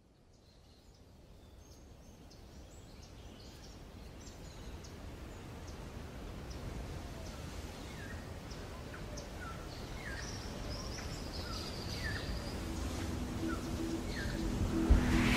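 Birds chirping, short repeated calls over a steady background of outdoor noise, the whole fading in gradually from silence.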